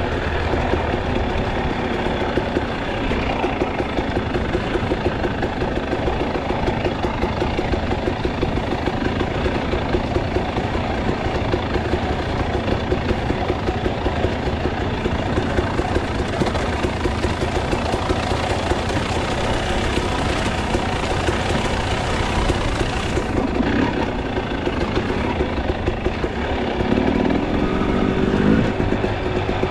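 KTM enduro dirt bike's engine running steadily under way over rough ground, the revs rising near the end.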